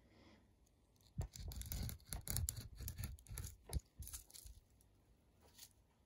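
A hand-held cutter blade pressed hard through sequin fabric on a cutting mat, a rough scraping crunch with many small clicks as the blade cuts through sequins. It runs from about a second in until past the middle, then only a few faint clicks follow.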